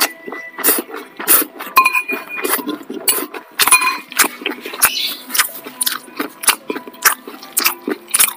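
Close-up eating sounds: wet chewing and mouth clicks from a mouthful of rice and stir-fried water spinach, several a second, with a metal spoon clinking against a ceramic bowl a few times, the clinks ringing briefly.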